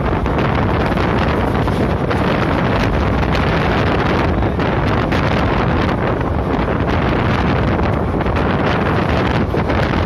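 Steady wind rush buffeting the microphone over the running noise of a passenger train at speed, heard from the side of the moving coach.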